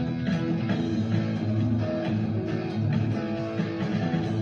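Guitar music: a guitar playing plucked notes and strums, with frequent sharp note attacks over held low notes.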